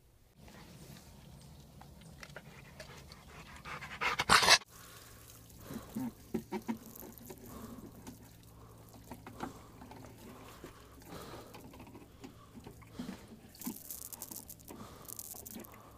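A black Labrador panting and sniffing as it noses a plastic watering can across a wooden deck, with the can knocking and scraping irregularly on the boards. A brief, loud burst of noise comes about four seconds in.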